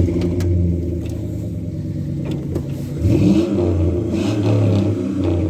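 Craftsman riding lawnmower's Briggs & Stratton engine starting up and running steadily. Its speed dips and rises a little about three seconds in.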